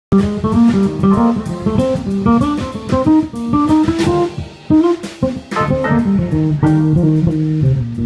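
Live electric bass guitar played as a quick, melodic run of plucked notes, with a drum kit keeping time beneath it. The band is sound-checking.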